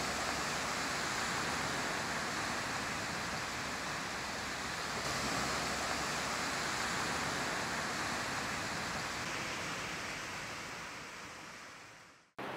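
Small waves washing onto a stony beach, a steady rush of surf that fades out near the end.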